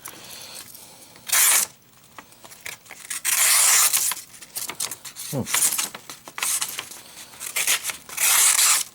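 Paper being sliced with the small blade of a Leatherman Squirt PS4 keychain multitool, in about six separate rasping strokes, the longest about three to four seconds in.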